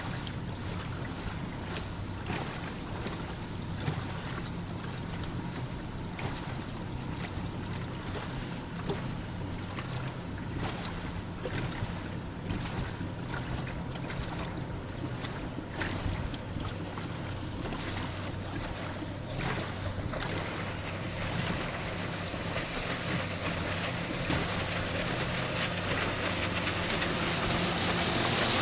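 Small motorboat under way: its engine hums steadily while water splashes irregularly against the hull, with wind on the microphone. Everything grows louder over the last few seconds.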